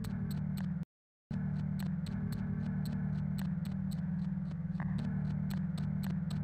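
A steady low electronic drone with a light click repeating about four times a second. The sound cuts out completely for a moment about a second in.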